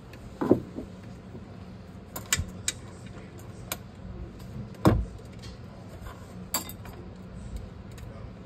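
Metal tools and parts clinking and knocking as they are handled, about six separate knocks with the loudest about five seconds in.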